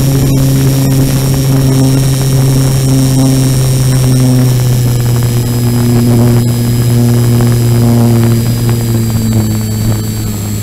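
Electric motor and propeller of an RC motor glider running under power in a climb, heard from a camera on the nose. It is a steady loud drone with a high thin whine above it that slowly falls in pitch.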